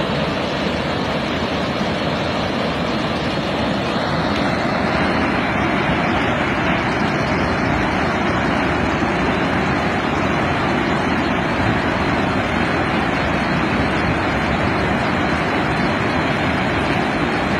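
Water pouring through the open gates of a dam spillway and crashing into the basin below: a loud, steady rushing noise.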